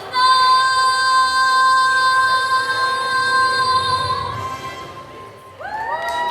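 A woman singing one long held note, about four seconds, that fades away. Near the end, several voices break in with rising, swooping cries.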